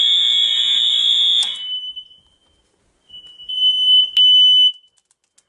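A fire alarm horn sounds a loud, steady, high-pitched tone, then cuts off about a second and a half in with a short fading ring. After a moment of silence, a smoke alarm sounds a single high-pitched tone from about three seconds in, lasting a little over a second.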